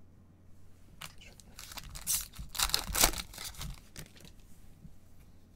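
Foil wrapper of a Panini Mosaic baseball card pack tearing and crinkling as the pack is opened, loudest between about two and three seconds in.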